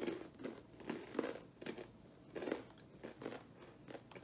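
Munchos spicy tomato chips being bitten and chewed close to the microphone: a quick series of soft crunches, about two or three a second.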